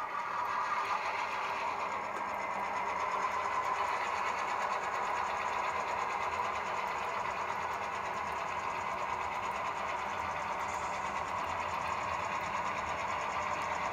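Model freight train moving slowly along the yard track: a steady mechanical whir and clatter from the model locomotive and its cars rolling on the rails.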